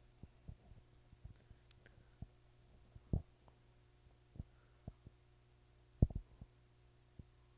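Steady low hum with a scattering of soft, dull thumps and light ticks, the loudest thumps about three seconds in and just after six seconds.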